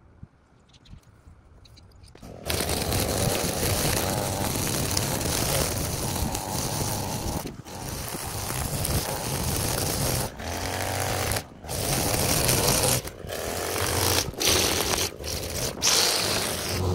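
String trimmer starting up about two and a half seconds in and running at high speed, cutting grass along a curb edge. The sound drops out briefly several times.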